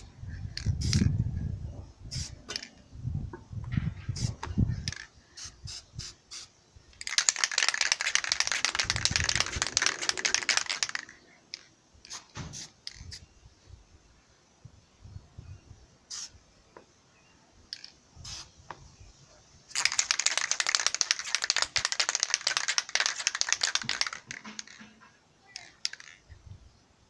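Aerosol spray paint can hissing in two long sprays of about four seconds each. Low rumbling handling noise in the first few seconds and scattered light clicks and knocks between the sprays.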